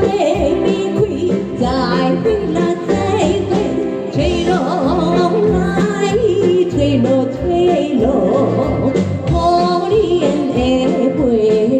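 An enka-style song: a voice singing with heavy vibrato over backing music.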